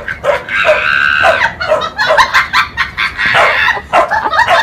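Dogs yelping and squealing in quick, high-pitched cries, with one long high squeal from about half a second to a second and a half in.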